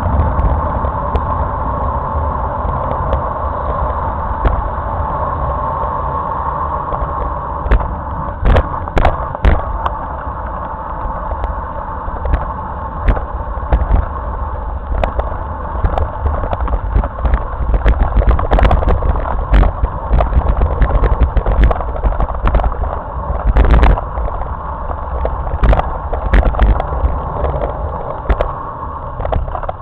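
Wind buffeting the microphone and a bicycle's tyres rolling on asphalt at speed, a steady rush with deep rumble. Frequent short knocks come through as road bumps jolt the handlebar-mounted camera.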